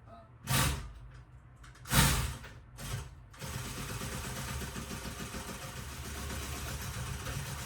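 Sewing machine running steadily as it top-stitches a seam, starting about three and a half seconds in. Before it, three short thumps from the material being handled and positioned.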